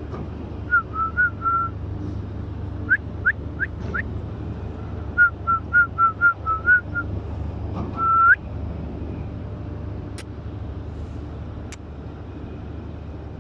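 A person whistling in short bursts of quick chirps to call a puppy's attention: a run of four, then four quick rising whistles, then about nine rapid chirps, and one longer rising whistle near the middle. A steady low hum runs underneath.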